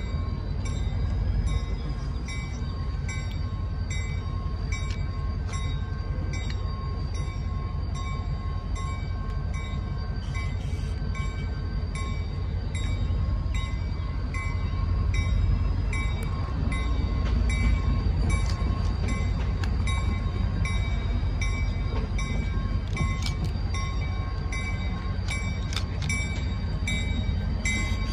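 Diesel locomotive running in the distance as it begins to pull forward, a steady low rumble. A bell rings at an even pace, about one and a half strokes a second.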